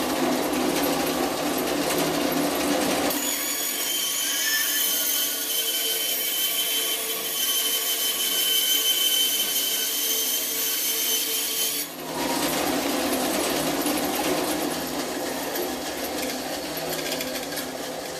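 A 1989 Delta bandsaw on its worn, cracked original rubber tires runs under power. From about three seconds in to about twelve seconds its blade cuts through half-inch plywood, adding a hissing cutting sound with high steady tones. After the cut it runs free again, slowly getting quieter near the end.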